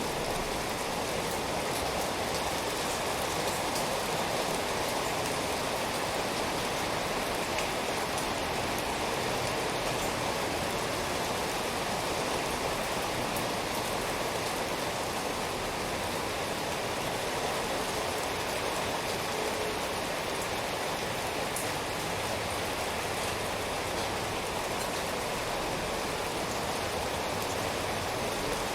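Steady rainfall, a constant even hiss with faint scattered drop ticks.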